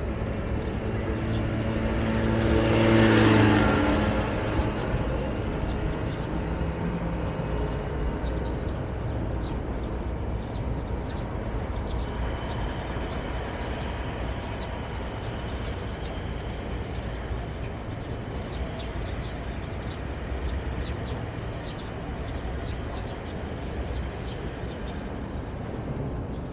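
A motor vehicle passes close, swelling to its loudest about three seconds in, with its engine note dropping as it goes by. Steady city traffic hum runs underneath.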